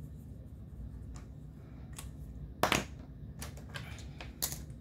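Faint marker strokes on paper, then several light clicks and taps of small objects handled on a tabletop, the loudest a sharp click about two and a half seconds in.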